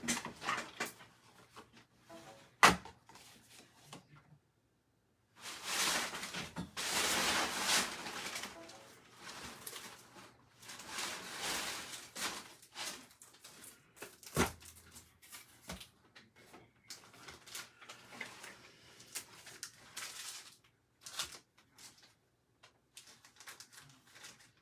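Handling noise: rustling with scattered sharp clicks and knocks. The longest stretches of rustle come about a quarter and about half of the way through.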